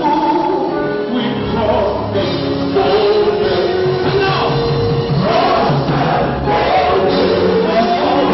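Live gospel music: a man sings into a microphone over a band, with other voices singing along. A bass line comes in about a second in.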